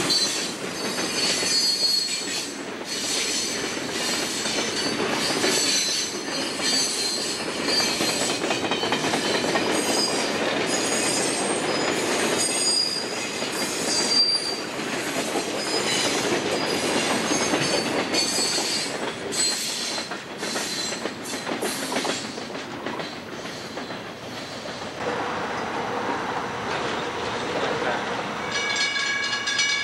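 Conrail freight train's boxcars rolling past at a grade crossing, with steady rolling noise, repeated clicking of wheels over rail joints and intermittent high-pitched wheel squeal. About 25 seconds in the clicking and squealing stop and a steadier sound follows.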